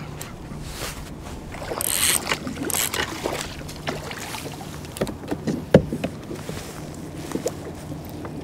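Tautog splashing at the surface beside a plastic fishing kayak as it is landed, two short splashes about two and three seconds in, then several sharp knocks against the hull as the fish is handled aboard.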